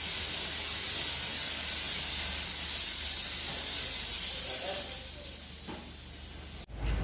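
A steady hiss with a low hum under it, easing a little about five seconds in and cutting off abruptly near the end.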